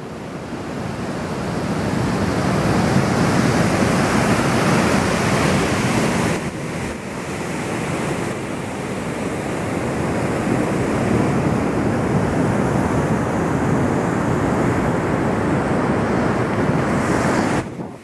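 Ocean surf breaking on a sandy beach, a steady rushing wash that swells in the first few seconds, mixed with wind buffeting the microphone. The level drops abruptly near the end.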